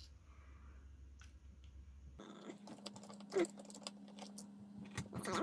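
Small clicks and taps of plastic and metal pistol parts being handled as a Byrna HD air pistol is put back together, a few scattered ones at first, then about two seconds in a fast, dense run of clicks, as in sped-up footage, over a steady hum.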